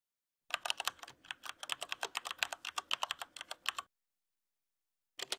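Fast typing on a computer keyboard: a quick run of crisp key clicks for about three seconds, then a pause and a brief flurry of a few more keystrokes near the end.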